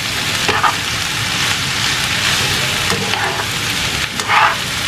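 Shredded chicken and vegetables sizzling in a frying pan as they are tossed with metal tongs, with a few short scrapes and clacks of the tongs against the pan.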